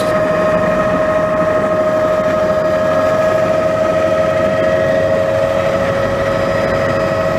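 Helicopter turbine engine running with a steady high whine over even rotor and airflow noise, heard from inside the passenger cabin.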